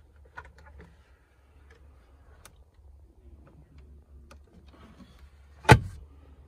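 Rear centre armrest storage lid of a Range Rover closing with one sharp thump near the end, after a few faint light clicks.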